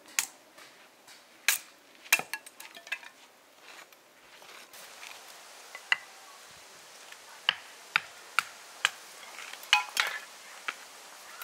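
Hatchet splitting kindling sticks on a wooden log round: about a dozen sharp chops at irregular intervals, with a pause partway through.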